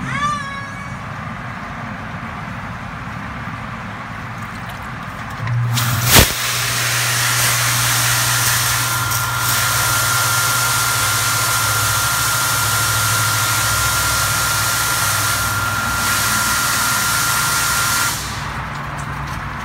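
Profidrum rotary drum filter running its cleaning cycle: about five seconds in the stainless jet pump starts with a low hum and a sharp click, then the spray bar's nozzles hiss water onto the turning stainless drum screen, with a thin steady whine. It all cuts off suddenly near the end when the wash stops.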